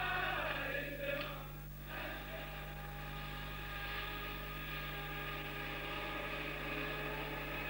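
A group of men singing together for about two seconds, giving way to the steady drone of a bus engine running.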